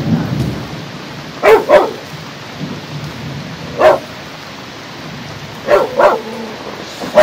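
A dog barking five times, as two quick pairs with a single bark between, over the steady hiss of heavy thunderstorm rain. A low rumble of thunder dies away in the first second.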